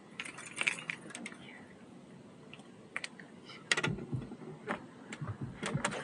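Irregular sharp clicks and light metallic rattles of fishing tackle being handled while a fish is reeled in. They come in small clusters, a few near the start and more from about the middle on.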